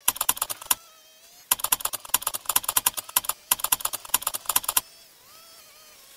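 Three bursts of fast, sharp clicking, about ten clicks a second, from hand-tool work on a light-gauge steel wall frame. Birds sing faintly between the bursts and after the clicking stops, a little before the end.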